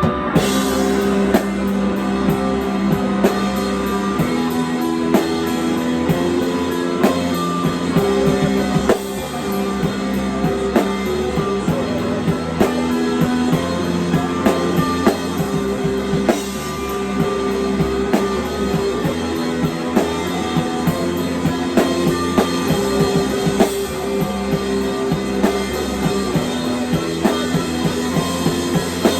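Rock music with a steady drum-kit beat and guitar.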